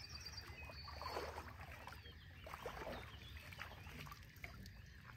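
Faint sloshing and splashing of lake water, swelling twice.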